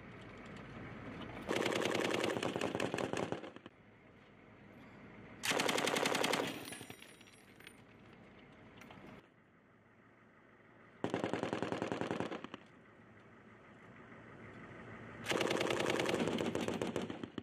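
Vehicle-mounted M240 machine gun firing four bursts of automatic fire, the first and last about two seconds long and the middle two about a second each.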